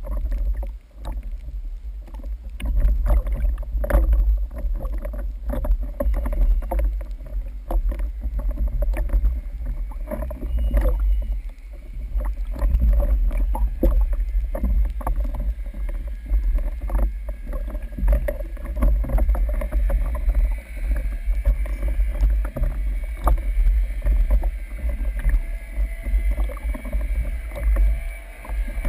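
Sea water sloshing and splashing at the surface, heard through a waterproof camera housing at the waterline: a dull low rumble with many small splashes and knocks.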